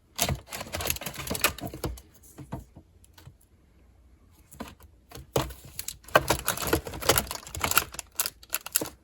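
Small toiletry bottles and packages being handled and set down: quick clicking and clattering in two spells, with a quieter pause of a few seconds in the middle.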